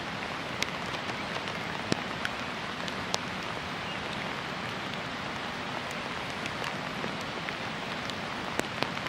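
Steady rain falling, an even hiss with scattered sharper drop ticks, a few of them louder at about 2 and 3 seconds in and near the end.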